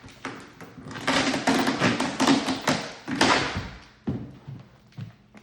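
Packaging being handled: scraping and rustling with many sharp taps and a few thumps, fading to scattered taps after about four seconds.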